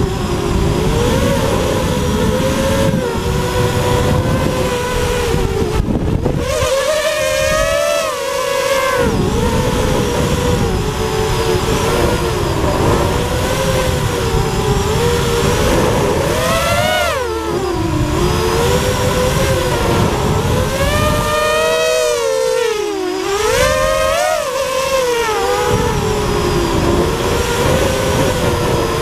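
FPV quadcopter's electric motors and propellers whining, the pitch rising and falling constantly with the throttle, over a rush of air. The low rumble drops away briefly twice, about six and twenty-two seconds in, as the throttle is eased off.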